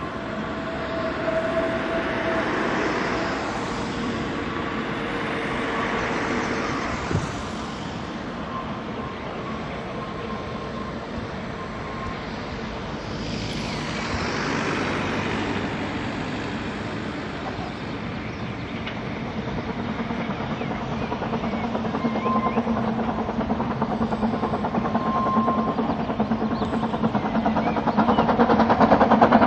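Hunslet-built narrow-gauge steam locomotive Blanche working a train at a distance, a steady rumble of exhaust and carriages that grows louder, with a rapid regular chuff, in the last few seconds. A whistle tone dies away in the first couple of seconds.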